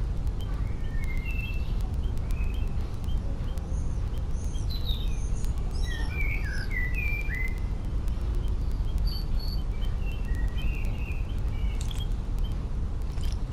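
Small songbirds singing and chirping in short, varied high phrases over a steady low rumble, with a burst of splashing water near the end as a European robin beats its wings in a shallow bird bath.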